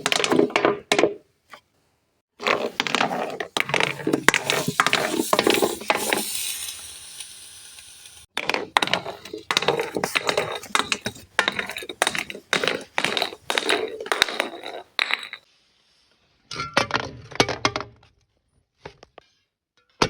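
Glass being crushed: crunching, cracking and clinking of breaking glass in several bursts with short pauses between, with a brief high ringing shimmer after one burst.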